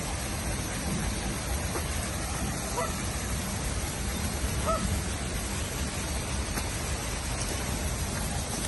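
A steady, even hiss, with two faint short chirps about three and five seconds in.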